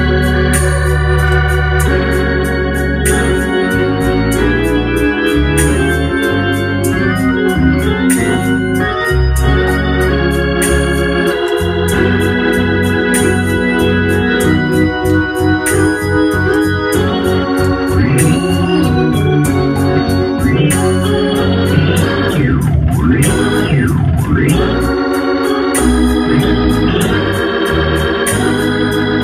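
Hammond organ playing gospel: sustained chords over a changing bass line, with a sweep of gliding notes about three quarters of the way through.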